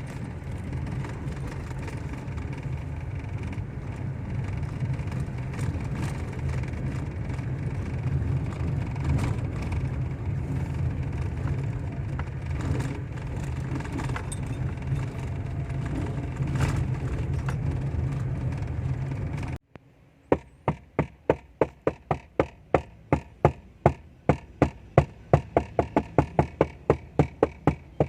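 Toyota Wigo hatchback heard from inside the cabin while driving: a steady engine and road rumble with faint, irregular clicking, the dashboard rattle that is being chased. After an abrupt cut, a run of sharp, evenly spaced knocks follows, about four a second, growing louder.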